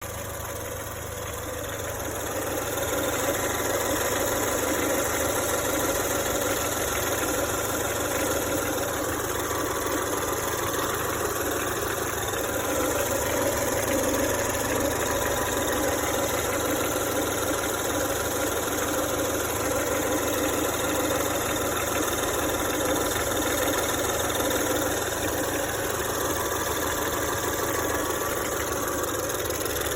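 Ford Focus 1.5 EcoBoost turbocharged four-cylinder engine idling, with an uneven clacking whose cause the owner cannot identify. The sound grows louder over the first few seconds, then holds steady.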